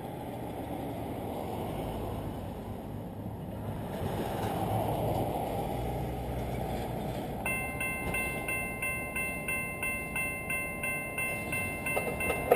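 A railway level-crossing warning bell starts ringing about halfway through, a fast even ding about three times a second, over a steady rumble of road traffic. It is the crossing signals activating for an approaching train.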